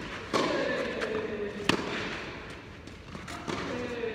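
Tennis rally on an indoor clay court: two sharp racquet strikes on the ball about a second and a half apart, echoing in the hall. The first is followed by a long drawn-out grunt, and a fainter knock near the end leads into another grunt.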